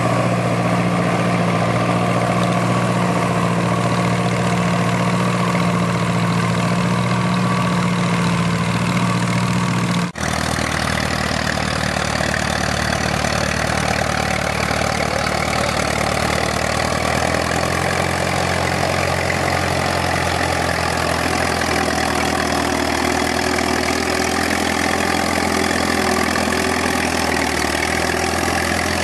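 Vintage farm tractor engine running steadily while pulling a plow through the field. About ten seconds in the sound cuts to a second tractor whose engine runs with a deeper note.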